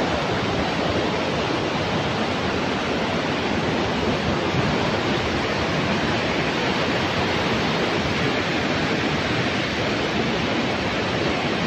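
Swollen river in flash flood rushing over rocks: a steady roar of white water. The flood has begun to ease.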